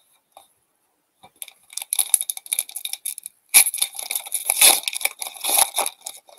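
Foil wrapper of an Upper Deck hockey card pack crinkling and tearing as it is pulled open by hand. It is silent at first; the crackling starts about a second in and gets louder in the second half.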